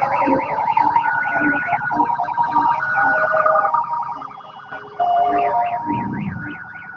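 Vehicle siren yelping, its pitch sweeping up and down about four times a second, with other held tones at several pitches over it; the escort vehicles leading the procession sound it. Fainter in the middle, then louder again about five seconds in.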